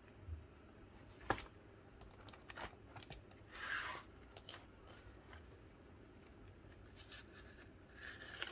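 Faint handling noises: a sharp click about a second in, then a short rustle of a cardboard insert being slid out of the headphone case lid's mesh pocket, with small taps and another brief rustle near the end.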